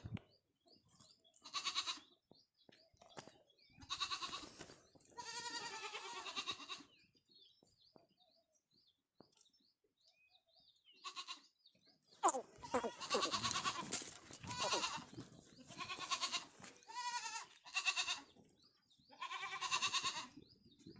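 Goats bleating again and again: about nine wavering calls with short gaps, a quiet stretch in the middle, then calls coming close together over the last nine seconds or so.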